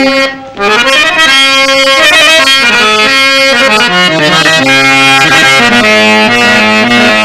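Harmonium playing a melody of stepping notes, picking up again after a brief drop about half a second in.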